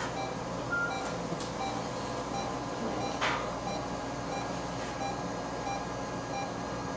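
Short electronic beeps from procedure-room equipment, about one a second, over a steady machine hum. A single click sounds about three seconds in.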